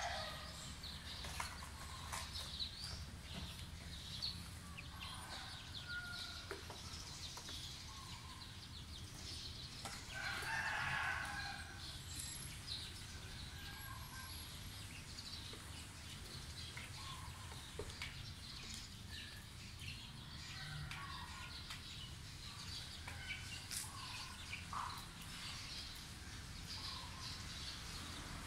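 Young chickens calling: a scatter of short peeps and cheeps, with one louder, longer call about ten seconds in.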